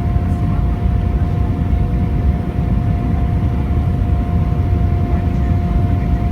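Airbus A321 cabin noise in flight: a steady low rumble of engines and airflow with a constant hum running through it.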